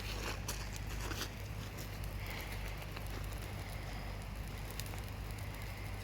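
Campfire crackling, with a few sharp pops in the first second and a half over a steady low rumble.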